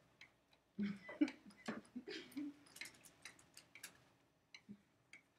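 Pen or stylus tapping and scratching on a writing surface as words are handwritten: a quick run of faint clicks and scrapes for about three seconds, thinning out to a couple of ticks near the end.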